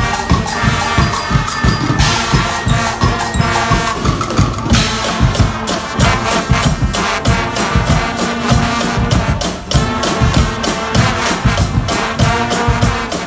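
Guggenmusik carnival band playing: brass (trumpets and trombones) over a loud, driving drum beat.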